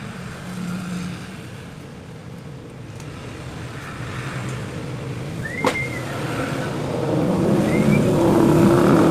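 A motor vehicle's engine growing steadily louder, as if approaching, with a sharp click a little past halfway.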